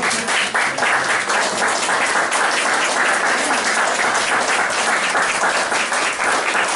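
Audience applauding: many hands clapping steadily and densely, the applause at the close of a talk.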